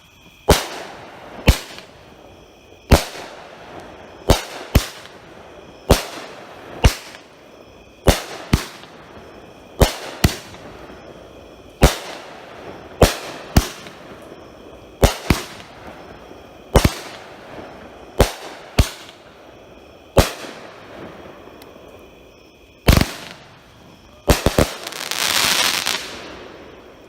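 A 16-shot 500-gram firework cake (AFW Phenom, inch-sized tubes) firing shot after shot, with sharp reports every second or two, many of them in close pairs. Near the end come a few quick shots and a burst of crackling from the final crackling dahlias.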